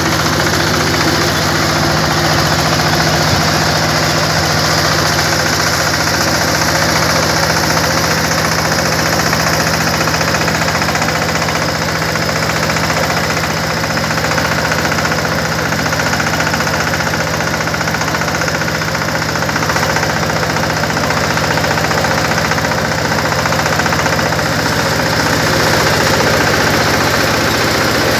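Engine-driven silage baler-wrapper machine running steadily at a constant pitch, with an even mechanical knocking.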